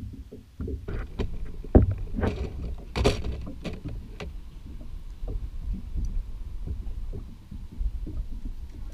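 Water slapping against a small skiff's hull with knocking on the boat, a sharp knock about two seconds in and another about a second later.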